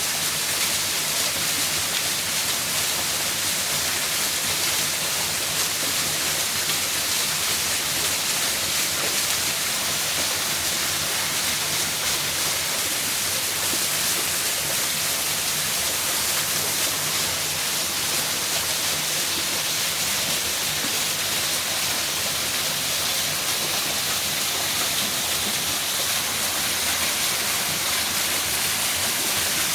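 Waterfall pouring, a steady, even rush of falling water with no breaks.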